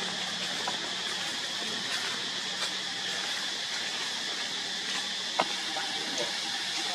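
Steady hissing outdoor forest ambience with a brighter high band and a faint low hum, broken by a few small clicks, with one sharper click about five and a half seconds in.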